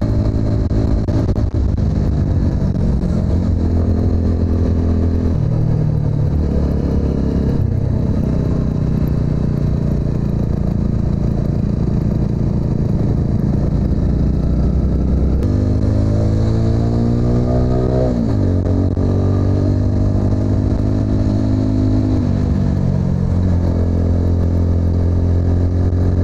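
TVS Apache RTR 200's single-cylinder engine running under way, holding an even pitch for stretches and shifting abruptly up or down several times. About two thirds of the way through it revs up for a couple of seconds, then drops sharply in pitch, as on a gear change.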